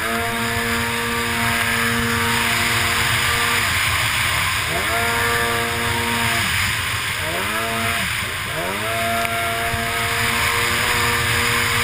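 Racing runabout jet ski engine running at high revs, with heavy water spray and wind noise. The revs hold steady, then drop and climb back three times in quick succession about halfway through as the throttle is eased and reopened, then hold high again.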